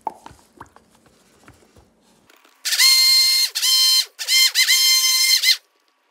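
Bella handheld immersion (stick) blender running in short pulses in cold-process soap batter, a high steady motor whine that drops in pitch each time it stops, three bursts in about three seconds. Before it come a few light knocks against the plastic tub.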